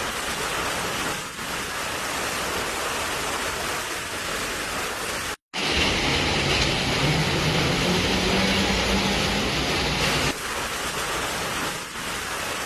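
Steady hiss of heavy rain. It breaks off abruptly about halfway through and comes back louder, with a low engine hum from a vehicle under it for several seconds before dropping back.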